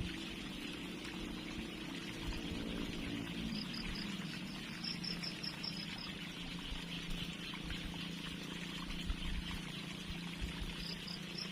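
Water trickling and flowing in a small river, with insects chirping; a short run of high chirps comes twice, about halfway through and near the end. A faint low steady hum runs underneath.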